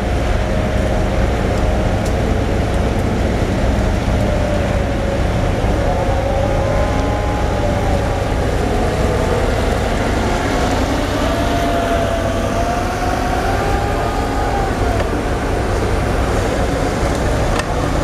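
Machinery on a fishing quay: a forklift and a moored ship's engines give a steady low drone, with a whine that wavers up and down in pitch from about six seconds in until near the end as the forklift works.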